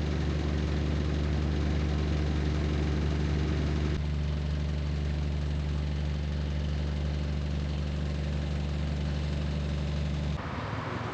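Diesel locomotive idling: a steady, low, even engine hum. Near the end it cuts off abruptly to quieter background noise.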